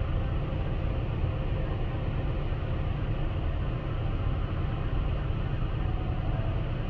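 Automatic car wash running, a steady rush of water spray and machinery heard through glass, with a low rumble and an even hiss.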